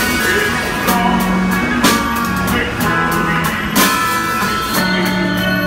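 A man singing a slow soul ballad in long held notes, backed by a street drummer on snare and cymbal, with a cymbal strike about every two seconds.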